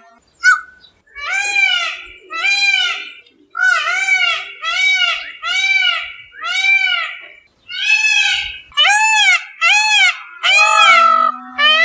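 Peacock calling: a run of loud, wailing calls repeated about once a second, each rising and then falling in pitch.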